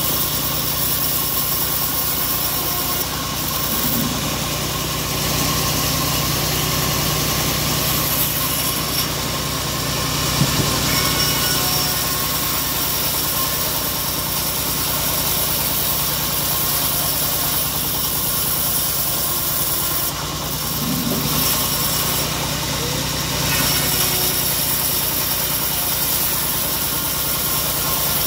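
Homemade engine-driven bandsaw mill running steadily as its band blade rips a mahogany plank lengthwise, a constant engine drone under the hiss of the cut.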